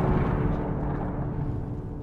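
Low rumble of an explosion dying away and fading steadily, with a faint steady tone held underneath.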